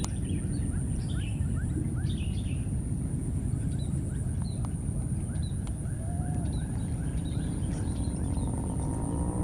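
Small birds chirping in quick runs of short, falling notes over a steady low rumbling noise.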